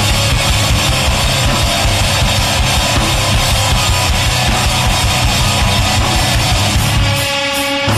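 Rock song with drums and electric guitar playing loud and full; about seven seconds in the low end drops away and the sound briefly thins out.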